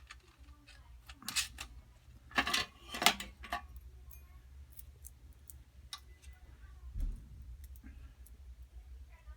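Small metal hardware (quarter-inch bolts and washers) clinking and clicking as it is handled against the aluminum fender and cart frame. There are several sharp clinks in the first few seconds, the loudest about three seconds in, then scattered lighter clicks over a steady low hum.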